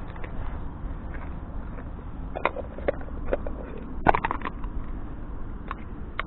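Dry grass and weeds rustling and crackling, with scattered short clicks and a brief cluster of them about four seconds in, over a low steady rumble.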